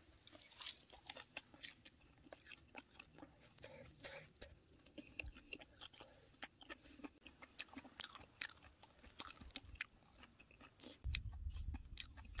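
Someone chewing a crisp deep-fried loach roll wrapped in perilla leaf: faint, irregular crunches throughout, with a low rumble near the end.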